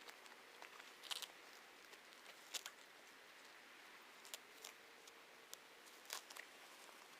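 Faint, scattered crackles and snaps of dry weeds and grass being pulled up by hand, four or five short ones spread over a few seconds against a quiet background.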